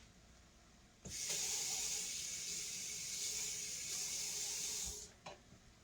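Water running from a tap into a container. The flow starts about a second in and is shut off about four seconds later.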